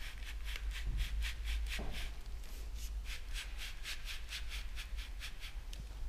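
Quick, even scraping strokes, about four or five a second, pausing briefly partway through, as the handlebar switch unit is worked back and forth on the aluminium handlebar. One soft knock comes about two seconds in, over a low steady hum.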